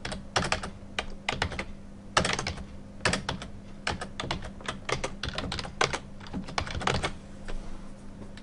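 Computer keyboard typing: irregular keystrokes in quick runs with short pauses.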